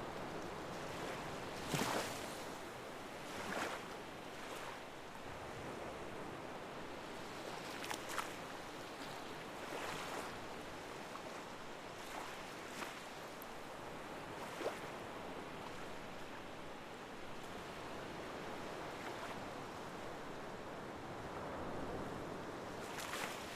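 Steady rushing water, with a few brief louder splashes every few seconds.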